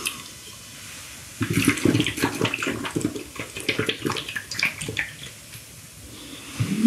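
A person gulping a drink from a plastic shaker bottle: liquid sloshing and swallowing in quick, irregular gulps, starting about a second and a half in and lasting a few seconds.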